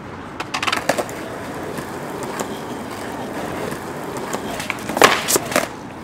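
Skateboard clattering onto paving about half a second in, its wheels then rolling over the rough surface, followed by a louder run of sharp clacks as the deck slaps down on the ground around five seconds in.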